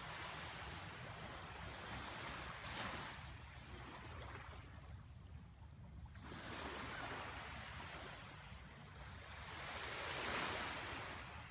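Small waves washing in, the wash swelling and fading every few seconds.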